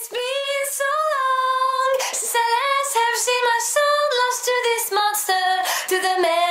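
A high solo voice singing a melody, with no instruments heard beneath it.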